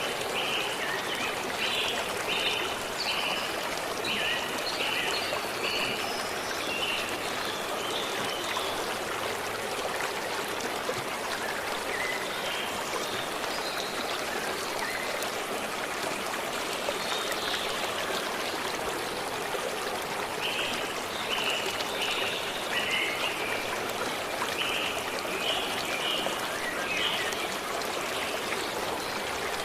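A forest stream running steadily, with a songbird singing strings of short repeated notes over it: one run in the first few seconds, a few scattered notes in the middle, and another run about two-thirds through.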